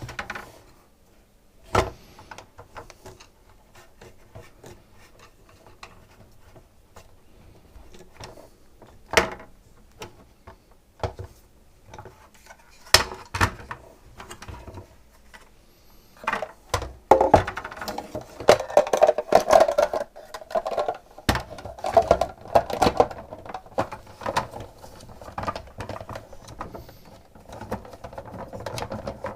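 Hands handling the plastic and metal parts of a SodaStream soda maker, with scattered sharp clicks and knocks. From about 17 seconds in there is a busier run of rapid clicking and rattling, like parts being fitted or screws being driven.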